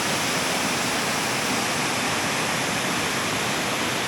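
Kegon Falls, a tall waterfall, rushing steadily: an even wash of falling-water noise.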